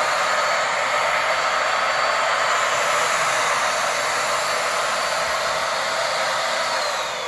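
Corded vacuum cleaner with a roller brush head running steadily, its motor giving a high whine over a loud rush of air; near the end the whine falls in pitch and the noise drops as it is switched off and winds down.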